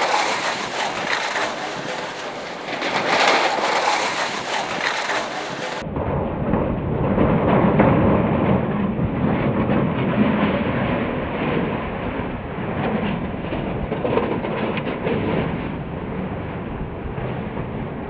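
Hurricane eyewall wind and rain pounding a car in gusts. About six seconds in, the sound switches to a duller recording with a heavy, steady low rumble.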